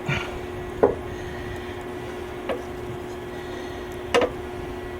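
Steady hum of a switched-on wire-feed welder, with three light knocks about a second in, midway through and about four seconds in as metal parts are handled.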